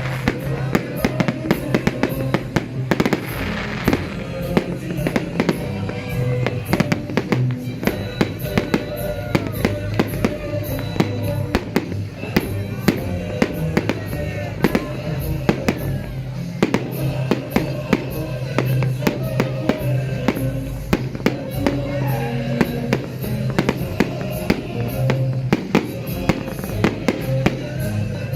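New Year fireworks and firecrackers going off constantly: many sharp bangs and crackles, several a second, over music with a steady low bass.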